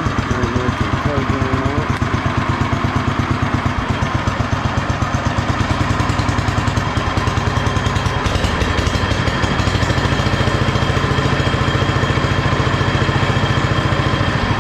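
Allis-Chalmers B-12 garden tractor's single-cylinder engine running at a steady, lumpy idle with an even firing beat, its throttle cable and carburetor not yet adjusted. The beat shifts slightly about eight seconds in.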